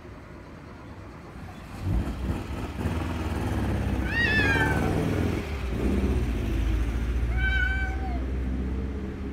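Cats in a face-off meowing: a high call that rises and falls about four seconds in, and a second, flatter meow near the end. Under the calls runs a low rumble that starts about two seconds in.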